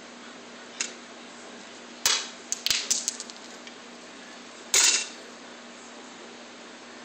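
Coins dropped into a glass bottle: a faint clink under a second in, a coin clinking and rattling against the glass for about a second and a half from two seconds in, and another loud clink near five seconds.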